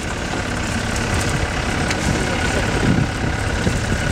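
Safari jeep's engine running steadily, a low rumble.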